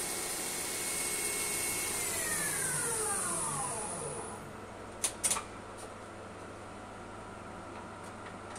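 A Hurco TM 8i CNC lathe runs with a steady high whine, which falls in pitch and dies away over about two seconds as a drive spins down. A steady low hum remains, and a couple of sharp clicks come about five seconds in.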